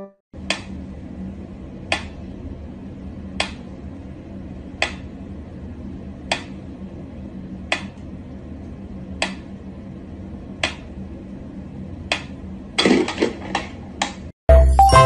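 Mechanical pyramid metronome ticking slowly, one sharp tick about every one and a half seconds, over a faint steady hum. Near the end comes a quick flurry of scuffling knocks.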